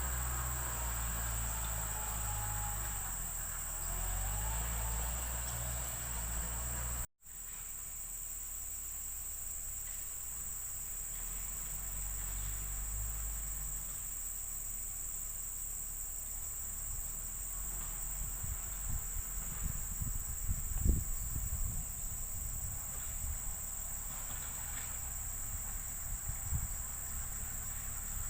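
Steady high-pitched buzzing of an insect chorus, with a low rumble underneath. Everything cuts out for a split second about seven seconds in.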